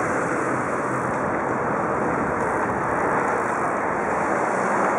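Steady rushing noise of a bicycle being ridden over a dirt track: wind buffeting the microphone and tyres rolling on packed dirt, with no distinct knocks or clicks.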